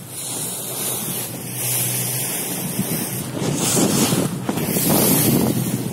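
Wind buffeting the microphone over open sea, gusting harder after about three seconds, with a steady low hum underneath.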